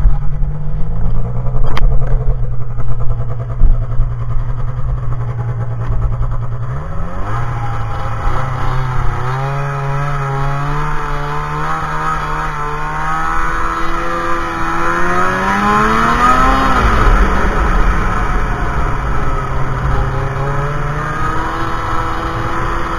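Snowmobile engine running under way, its pitch rising and falling with the throttle. The revs pick up about seven seconds in, climb to a peak around sixteen seconds in, then drop back.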